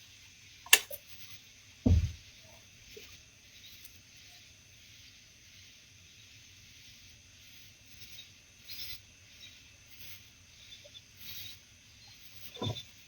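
Faint, steady night chorus of insects. A sharp click comes about a second in, and low knocks come about two seconds in and again near the end.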